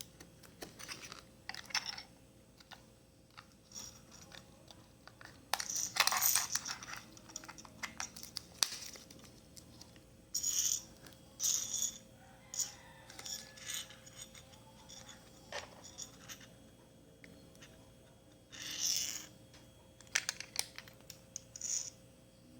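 Hands handling a weighing scale and its battery: a run of small clicks and ticks, with several longer scraping, rustling handling noises.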